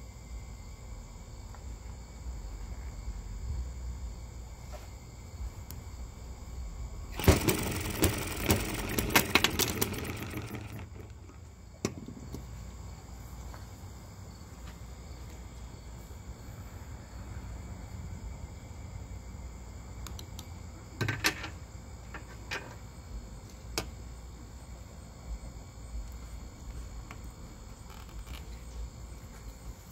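Crickets chirping steadily throughout. About seven seconds in, a rapid run of mechanical clicks and clatter lasting about three and a half seconds as the Microcosm M94 hit-and-miss model engine is spun over by hand without starting, then a few single clicks later on.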